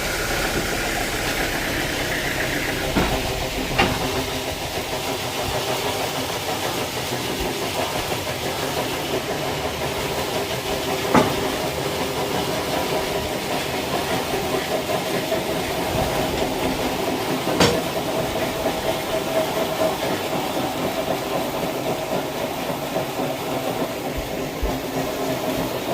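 Sawmill machinery running steadily with a constant hum, broken by three short sharp knocks.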